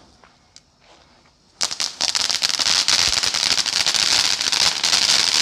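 Two ground firework fountains (anar) spraying sparks. A faint hiss gives way, about a second and a half in, to a loud, dense crackling that keeps going.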